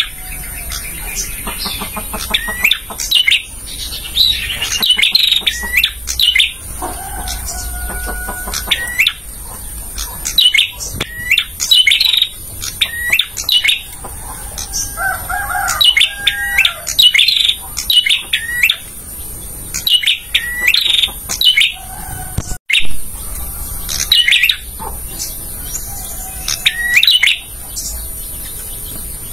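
Male prenjak, a small prinia, singing its sharp, rapid chirping song in short clusters of notes that repeat about every second or two, loud and close.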